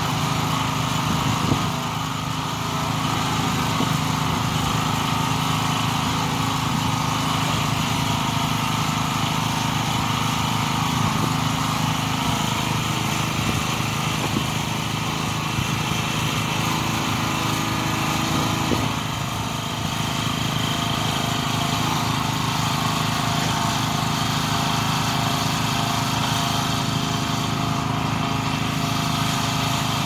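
Small gasoline engine of a Nortrac towable backhoe running steadily, driving the hydraulics as the boom and bucket are worked, with slight dips in level about 2 and 19 seconds in.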